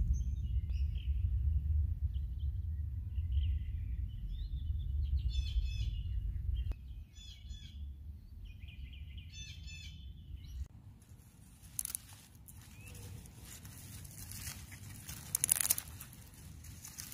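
Small birds calling in short repeated chirping phrases over a low rumble, which stops partway through. Near two-thirds of the way in, this gives way to irregular rustling and crackling as a hand grips and pulls at narrowleaf plantain leaves.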